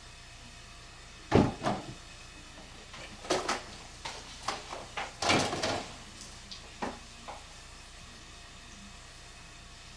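A run of irregular knocks and clatters over about six seconds, loudest a little over a second in and again around five seconds in, over a steady low hiss.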